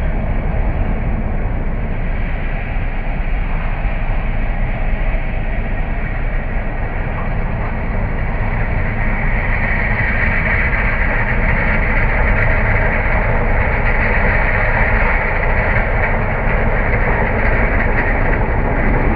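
Asphalt cold milling machine at work: its diesel engine and cutting drum make a steady, loud, dense grinding noise, with a higher grinding edge growing louder about halfway through.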